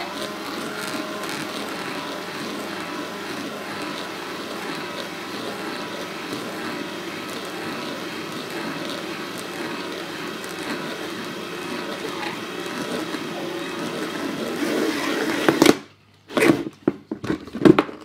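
Electric drill running steadily as a flat spade bit cuts a 30 mm hole through the thin wall of a clear plastic tub. The drill stops suddenly about 16 seconds in, and a few sharp knocks follow as the tub is handled.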